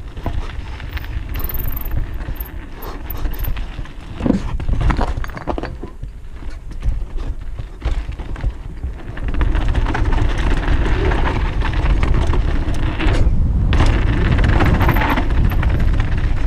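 Downhill mountain bike descending a dirt trail: wind buffeting the helmet-mounted camera's microphone as a heavy rumble, tyres rolling over loose dirt and stones, and the bike's chain and frame rattling and knocking over bumps. It gets louder and busier from about halfway through.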